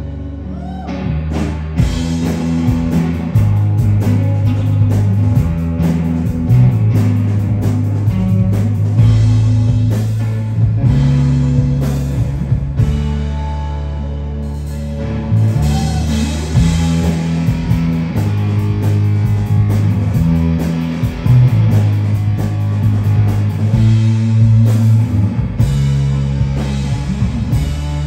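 Live psychedelic rock band playing: two electric guitars over a drum kit, with the drums and cymbals coming in about two seconds in.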